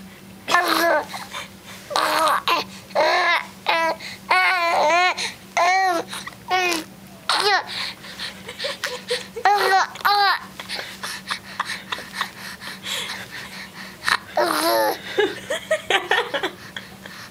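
Young baby cooing and babbling: a run of short, high-pitched vocal sounds, some rising and falling, with gaps between them. They pause for a few seconds after about ten seconds, then come again briefly. A faint steady low hum runs underneath.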